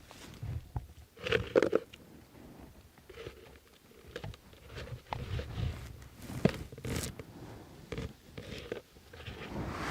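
Hands working through low blueberry bushes: irregular rustling and crackling of leaves and twigs with small scattered clicks, loudest in a short cluster about a second and a half in.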